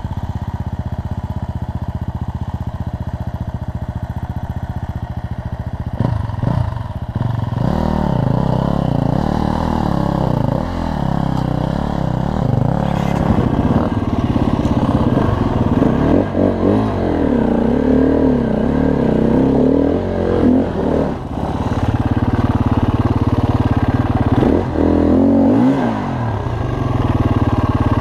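Dirt bike engine idling steadily, then revved up and down repeatedly from about six seconds in, with quick throttle blips near the end.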